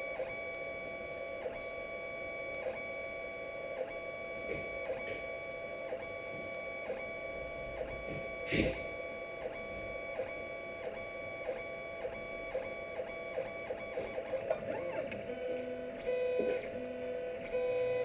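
3D printer running a print: its stepper motors whine in steady tones, and near the end short tones switch on and off at changing pitches as the moves change. There is one sharp click about eight and a half seconds in.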